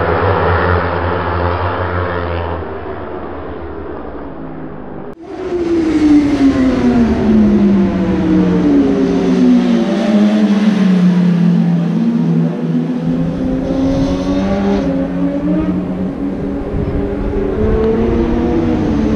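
Superbike racing motorcycles on track. Several engines run fairly steadily at first, then there is an abrupt change about five seconds in. After it the engine notes fall slowly in pitch as bikes slow for a corner and rise again near the end as they accelerate away.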